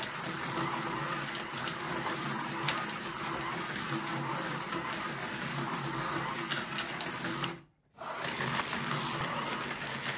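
Small electric motors of Carrera First Peppa Pig slot cars whirring steadily as the cars race round the plastic track. The sound drops out briefly about eight seconds in, then carries on.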